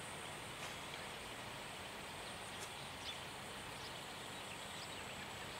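Faint open-air background noise with a steady high-pitched hum and a few faint bird chirps.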